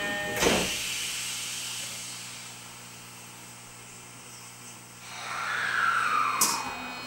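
Tokyo Metro 16000 series subway car just after its doors shut: a short thump and hiss about half a second in, then a low steady hum. About five seconds in the Toshiba permanent-magnet motor drive starts up as the train pulls away, a whine gliding down in pitch, with a sharp click near the end.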